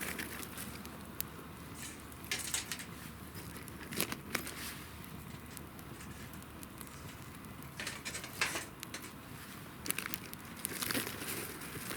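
Small campfire crackling, with irregular sharp pops and short bursts of crackle over a steady hiss.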